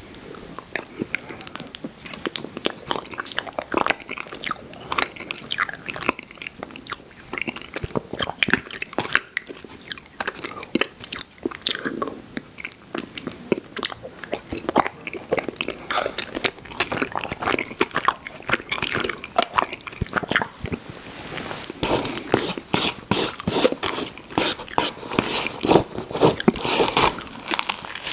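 Close-miked mouth sounds of a person eating ice cream: wet chewing, lip smacks and small crunches, with a steady stream of quick clicks.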